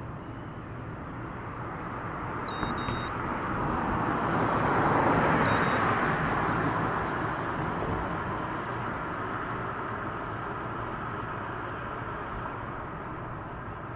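A car passing by, its road noise swelling to a peak about five seconds in and fading away over steady background rumble. Two short electronic beeps sound about two and a half seconds in, and a fainter one shortly after the peak.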